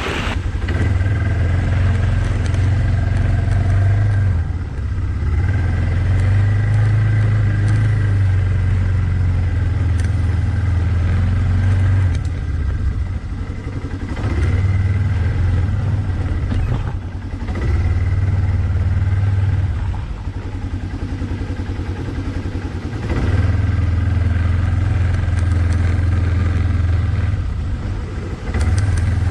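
Yamaha ATV engine running under way, the throttle opening and easing off several times, with a thin steady whine above the engine note. It is heard up close, as from a camera mounted on the ATV.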